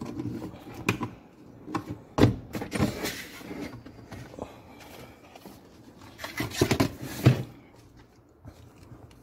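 Plastic clicks, knocks and rubbing as hands handle the removed glove box and the dashboard trim around the cabin air filter housing, with the sharpest knocks about two seconds in and again around seven seconds, over a low steady hum.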